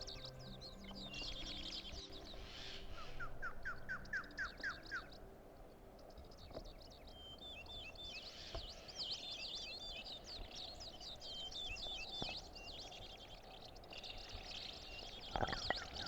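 Birds chirping and trilling in quick repeated calls, with a run of falling notes about three to five seconds in. Soft sustained music notes sound underneath during the first few seconds, then fade.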